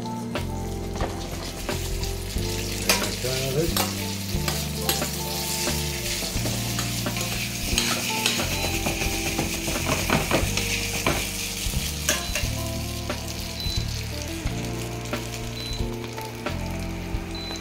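Spaghetti frying in olive oil with garlic in a stainless steel pan, sizzling as a fork stirs and tosses it, with the fork clicking and scraping against the pan. The sizzle is strongest about halfway through.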